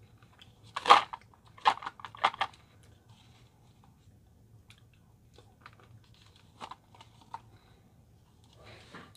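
A burst of four sharp clicks and crackles about a second in, a few fainter ticks around six to seven seconds in, and a soft rustle near the end: small objects or packaging being handled.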